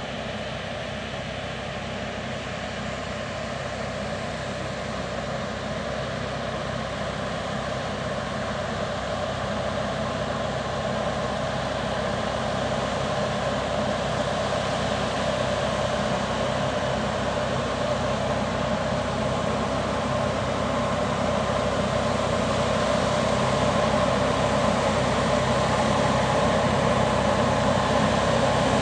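Tractor-mounted Genesini Grecale multi-row mist sprayer at work: a steady tractor engine note with the rush of the sprayer's air fan, slowly getting louder as it comes closer.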